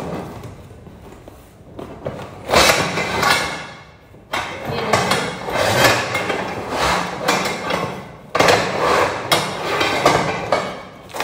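Cardboard parcel being opened by hand: packing tape torn off and the box's cardboard flaps pulled and rattled, in a run of noisy rips and scrapes that begins about two seconds in.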